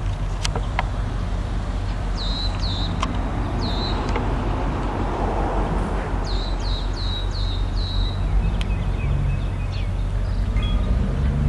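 A songbird calling two quick runs of short, high, downward-hooked notes over a steady low rumble.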